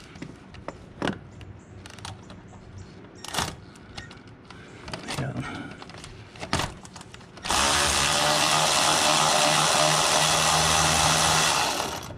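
A few light clicks and knocks of tools on metal, then a cordless power ratchet runs steadily for about four seconds, spinning out a loosened exhaust manifold bolt, and stops.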